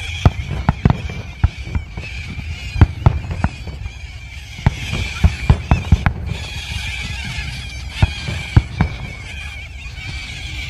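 Fireworks going off in a rapid, uneven series of sharp bangs, thinning out near the end. Under them, cockatoos screech continuously, alarmed by the explosions.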